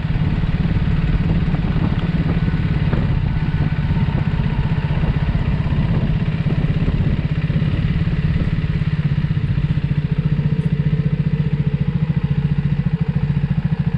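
Triumph Speed 400's single-cylinder engine running steadily at low revs, an even low pulsing beat with no revving.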